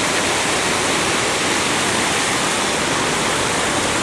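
Water rushing steadily over a millpond's stone dam and spillway, a constant even roar of falling water.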